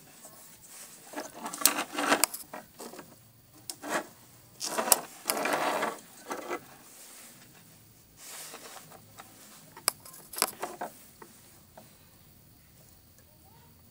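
Handling noise: irregular bursts of rustling and scraping with sharp clicks as a printer mainboard is shifted and turned on a wooden table, busiest in the first half and again briefly past the middle.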